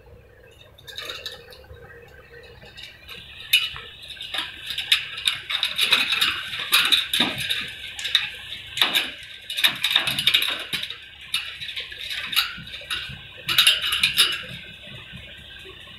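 Ringneck parakeets giving harsh, repeated squawks, mixed with sharp clinks and rattles from the wire cage as a bird is handled. The noise builds a few seconds in and eases off shortly before the end.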